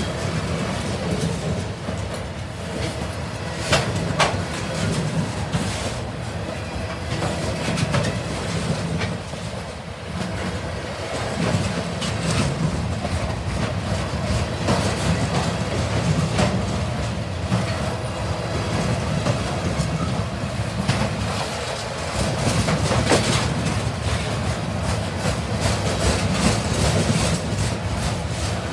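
Freight train of flatcars loaded with trash containers rolling past close by: a steady rumble with steel wheels clacking over the rail joints, and a few sharp knocks, a pair about four seconds in and another near the end.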